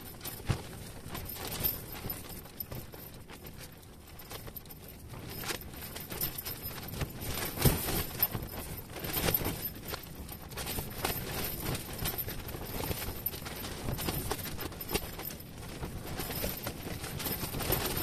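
Wind buffeting the fabric walls of an ice-fishing tent: an irregular rustling and flapping with scattered soft snaps, picking up after about five seconds.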